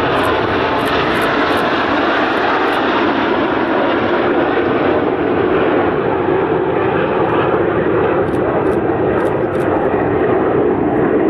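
Steady jet roar from a nine-plane formation of CT-114 Tutor jet trainers, the Snowbirds' single-turbojet aircraft, flying overhead.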